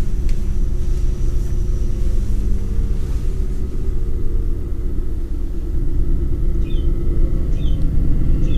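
A steady, loud low rumble, with a few short high chirps in the last couple of seconds.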